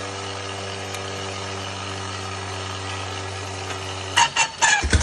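Eclipse aircraft inertia starter, salvaged from a P-40 Warhawk, whining steadily as its flywheel and planetary gearing spin at speed. About four seconds in the whine cuts off with a few sharp clatters as the starter is engaged. Near the end the 1948 Harley-Davidson panhead V-twin fires and runs loudly with rapid pulses.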